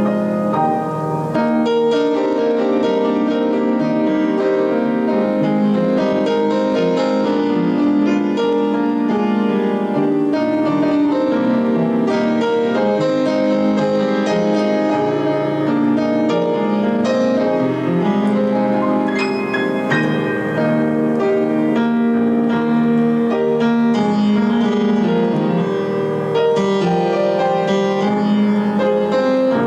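Piano music, a slow steady closing piece playing after the benediction.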